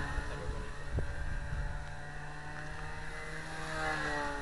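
Radio-controlled model Spitfire's motor and propeller running at speed as the plane makes low passes. The pitch drops as it flies past, at the start and again near the end.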